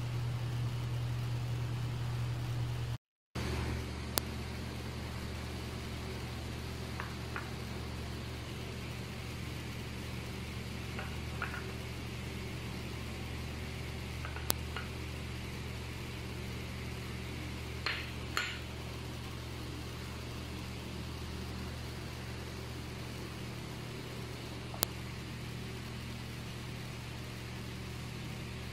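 Steady low mechanical hum with a few faint clicks and light knocks scattered through it. It drops out briefly about three seconds in.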